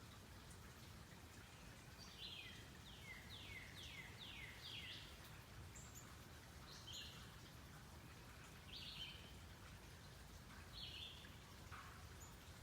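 Faint wild birdsong: about two seconds in, a quick run of about six whistled notes, each sliding down in pitch, then short single calls every couple of seconds, over a low steady background rumble.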